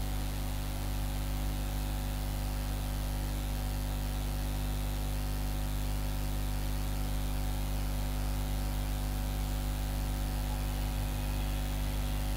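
Steady electrical mains hum with static hiss.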